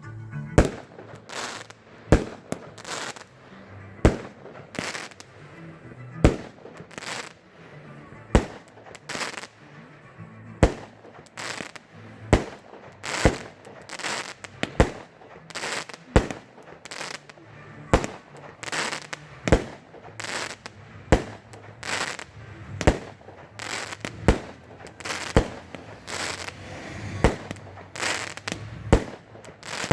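Fireworks display: aerial shells bursting in a steady series of sharp bangs, about one to two a second, with crackle and echo between them.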